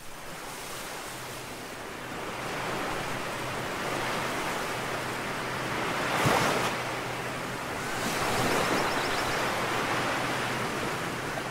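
Ocean surf breaking and washing up a sandy beach, the rush of the waves swelling and fading, loudest about six seconds in.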